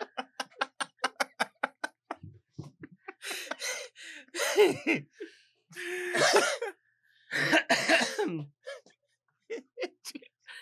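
A person laughing in quick breathy pulses, about five a second, which turns into a coughing fit of four or five hard coughs.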